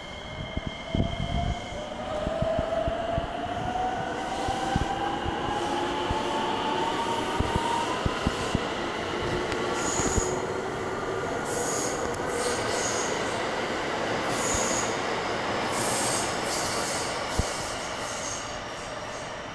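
Electric train pulling away and gathering speed: its traction motors give a whine that climbs steadily in pitch over the first eight seconds or so, over a running rumble with scattered clicks from the wheels.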